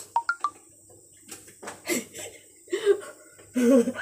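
A woman's short, broken vocal sounds and breaths as she reacts to the burn of very spicy instant noodles, with three quick high squeaks right at the start.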